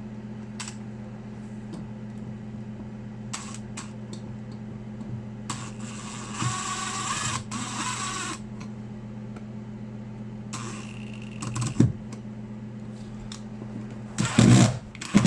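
A handheld power driver runs for about two seconds, driving a machine screw into a metal electrical box, and then runs again briefly. A steady low hum sits underneath.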